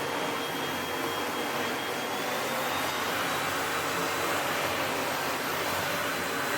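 Sebo Felix upright vacuum cleaner running steadily, its motor and powered brush head working after a cable replacement, with a thin high whine that rises slightly about two seconds in.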